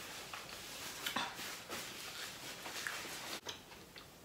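Close-miked eating sounds: quiet chewing and mouth noises, with a few short clicks and rustles as burger and fries are handled.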